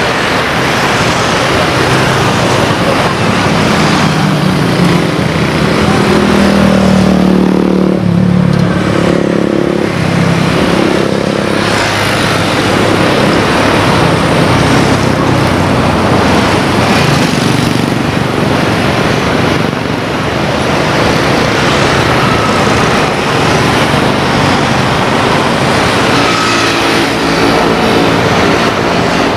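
Cessna 172 single-engine piston propeller plane flying past, its engine drone loudest about seven to ten seconds in and then fading, over a steady wash of noise.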